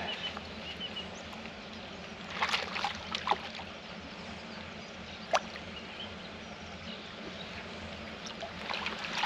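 Water sloshing and splashing around a landing net as a big carp is released from it into the pond, with a short burst of splashes about two and a half seconds in as the fish kicks free. A single sharp click follows a couple of seconds later.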